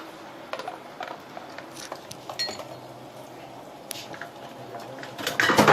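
Metal utensil clinking and scraping in a pan as eggs cook: scattered light clicks, with a louder burst of scraping near the end.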